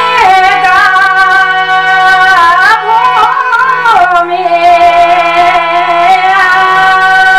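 A woman singing a Pahari folk melody with gliding, ornamented phrases, settling into a long held note about four seconds in, over steady instrumental accompaniment.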